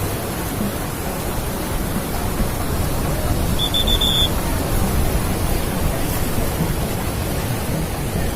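Steady rushing noise of heavy surf on the beach. About three and a half seconds in, a brief high tone sounds as a few quick pips.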